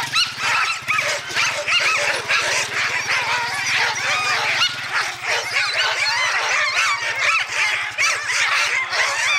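A hitched sled dog team barking and yelping all at once, a dense, continuous chorus of many overlapping high yips, the excited racket of dogs lunging in harness, eager to run. A low rhythmic rumble underneath stops about halfway through.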